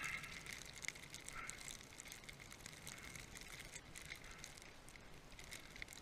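Snow hissing and crackling as a rider moves through deep powder, a faint steady hiss dotted with many small irregular crackles.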